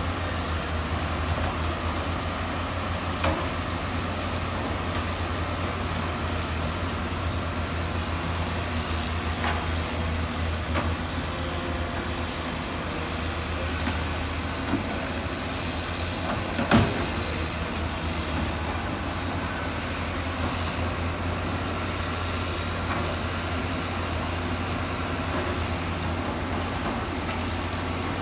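Heavy diesel engine of construction machinery running steadily, with a few sharp knocks, the loudest about two-thirds of the way through.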